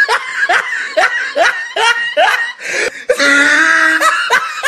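A person laughing in a quick run of short rising bursts, about three a second, then a longer held laughing sound near the end.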